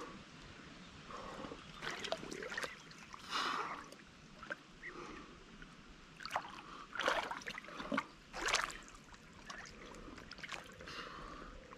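Shallow river water sloshing and splashing irregularly around a large wels catfish held at the surface by hand, with several louder splashes, the strongest about 7 and 8.5 seconds in.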